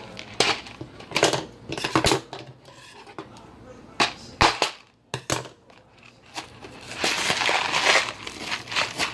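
Cardboard macaroni-and-cheese boxes being torn open and handled: several sharp clicks and knocks, then a denser stretch of crinkling and tearing near the end.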